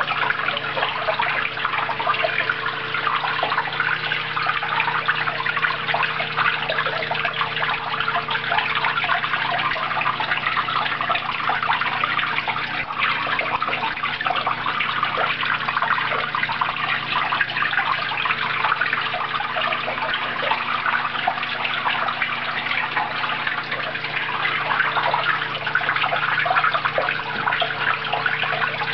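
Water splashing and trickling steadily down the fake-rock waterfalls of a rainforest terrarium, over a faint steady low hum.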